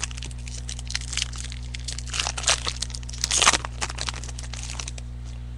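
Crinkling and crackling of plastic packaging as trading cards are handled, in irregular bursts that are loudest about three and a half seconds in, over a steady low electrical hum.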